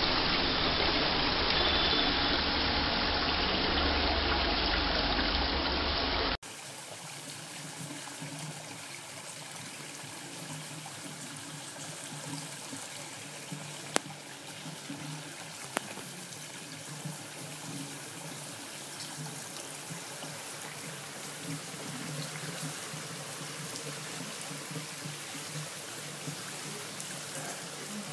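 Water flowing over a stone-sphere ball fountain, trickling and splashing down the sphere into its base. About six seconds in, the loud running water drops to a quieter, steady trickle from a second, larger stone-sphere fountain.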